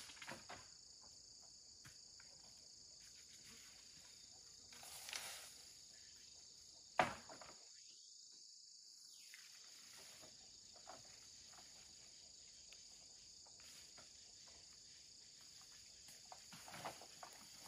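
Faint, steady chorus of insects in a forest, a high continuous buzz. A few soft rustles of vegetation and one sharp click or snap about seven seconds in.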